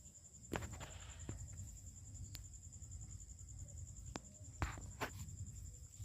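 A steady, high-pitched insect trill, finely pulsed, with a handful of scattered sharp clicks and knocks, the loudest about half a second and four and a half seconds in.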